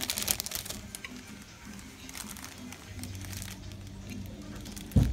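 Thin plastic bag crinkling in the hands while it is opened and filled, loudest in the first half-second, with a few lighter rustles later. A single loud thump comes near the end.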